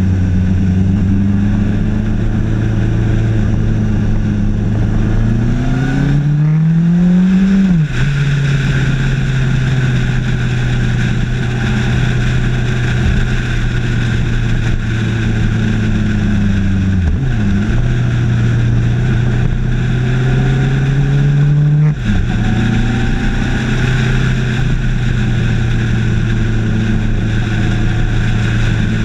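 Suzuki GSX1250FA's 1255 cc inline-four engine running under way. Its note climbs under acceleration and drops sharply at gear changes about eight and twenty-two seconds in, with a brief dip and recovery in between. Wind and road noise run steadily underneath.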